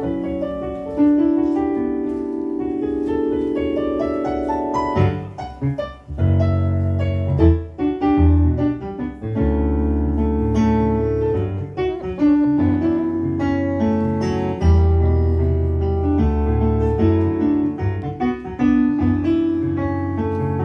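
Solo piano played on a Yamaha digital stage keyboard: held chords at first, then a deep bass line joins in the left hand from about six seconds in under the chords.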